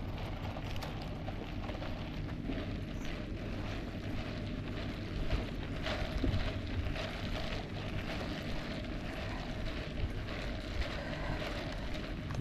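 Footsteps on pavement, irregular and faint, over a steady low rumble of wind on the microphone.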